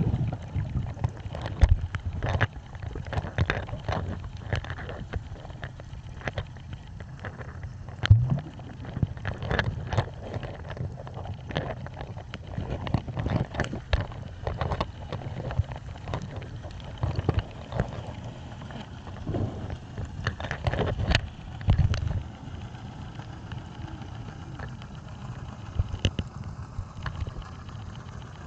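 Water noise as heard underwater: a steady low rumble with many irregular clicks and knocks.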